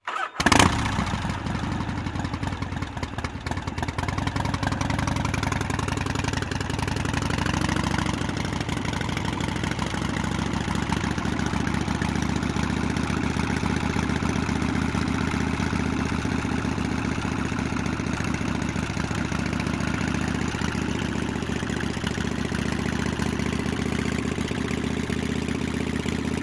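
Antonov An-2 biplane's nine-cylinder radial engine running with its propeller turning, starting abruptly with a loud onset, briefly rising in pitch about seven seconds in, then holding a steady drone.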